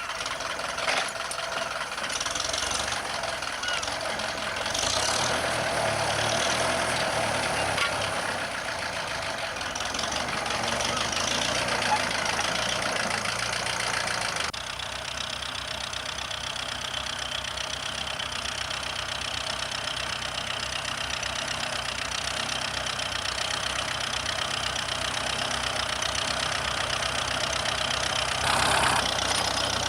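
Ferguson TEF tractor's four-cylinder diesel engine running steadily while pulling a single furrow plough. About halfway through the sound changes abruptly.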